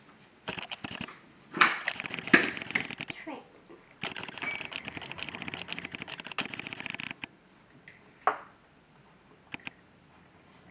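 A small wooden toy car built from magnetic Tegu blocks, handled and rolled on a wooden tabletop: sharp wooden knocks in the first few seconds, then a steady rolling rattle with fine rapid ticking for about three seconds, then a couple of single clicks.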